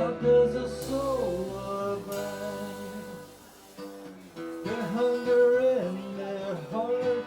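Acoustic string band of guitars, fiddle and bass playing an instrumental break over strummed acoustic guitar, with a sliding, wavering melody line. The low bass notes drop away about halfway through.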